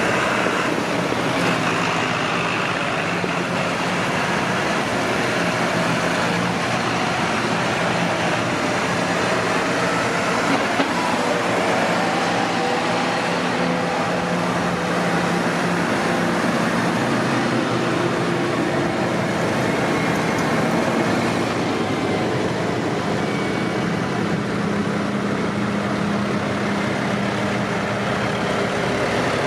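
Tractor engines running steadily as tractors drive along the road, their engine notes shifting slowly in pitch.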